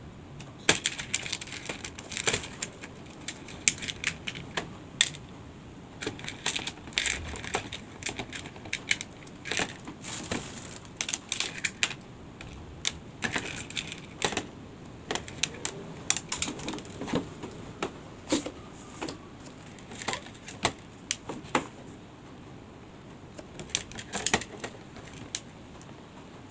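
Small hard craft pieces clicking and clattering irregularly as fingers sort and pick them off a plastic plate and press them into a plastic dish.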